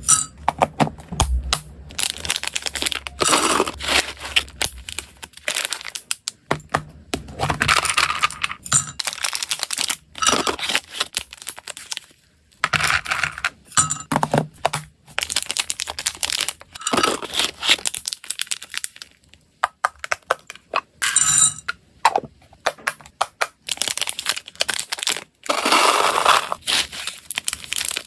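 Hard, dry hamster snacks (cereal rings and dried stick-shaped pieces) spooned into a glass jug on a kitchen scale, clattering and clinking against the glass in repeated bursts with short pauses between. Near the end a plastic snack bag crinkles as it is handled.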